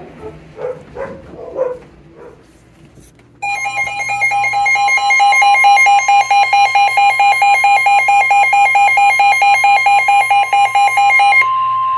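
Electronic emergency-alert tone: loud, rapid electronic beeping starts a few seconds in and runs for about eight seconds, then gives way near the end to a single steady tone, the attention signal ahead of a severe thunderstorm warning.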